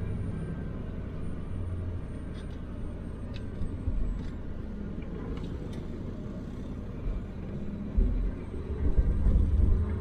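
Truck engine running with a steady low rumble, with a few heavier low thumps about four seconds in and again near the end.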